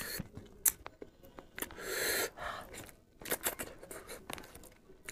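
Close-miked eating by hand: fingers mixing rice on a plate, with small wet clicks and smacks from the mouth. There is a short breathy sound about two seconds in.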